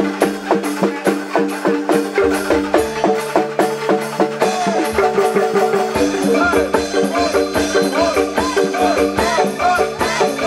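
Background music: held tones over a steady, quick beat of struck percussion, about four strikes a second.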